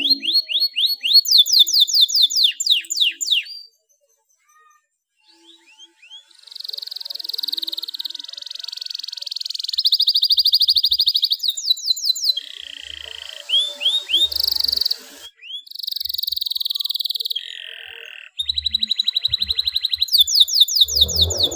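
Domestic canary, a male in breeding condition, singing: long runs of fast repeated high notes, some quick sweeping chirps and others buzzy rolling trills, each run switching abruptly to the next. The song breaks off for about two seconds a few seconds in, then resumes.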